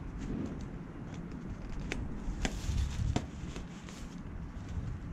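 Rustling of a thin silicone-coated nylon tent fly being handled, with a few sharp clicks of its fittings about two to three seconds in.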